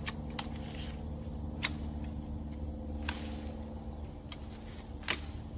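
Hand pruning shears snipping through brush: about half a dozen sharp clicks at irregular intervals. A steady low hum runs underneath.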